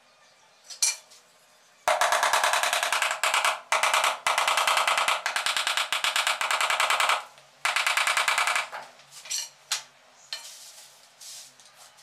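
Very rapid light hammer taps on a ceramic wall tile, bedding it into the mortar behind it: one knock, then a long fast run of taps, a brief pause, and a shorter run, followed by a few scattered taps.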